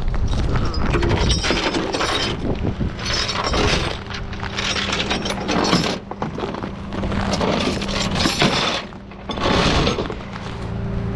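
Steel tie-down chains rattling and clanking in irregular bursts as they are handled and hooked to secure a wrecked pickup on a rollback, over the steady hum of the tow truck's idling engine.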